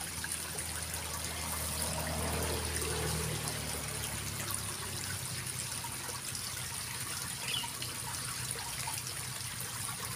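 Steady trickle and flow of water running into a small irrigation ditch.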